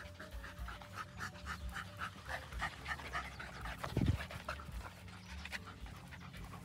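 A dog panting hard and fast, about three breaths a second, after running and playing in 30-degree heat. A low thump comes about four seconds in.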